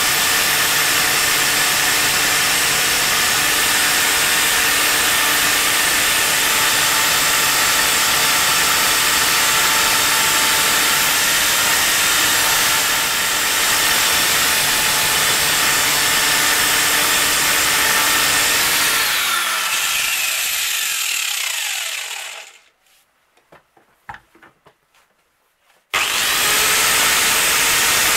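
Angle grinder with a purple abrasive disc running steadily and grinding against the steel soleplate of an old iron. About 19 seconds in it is switched off and its whine falls away. After a few seconds of near quiet with a few small knocks, it starts again abruptly near the end.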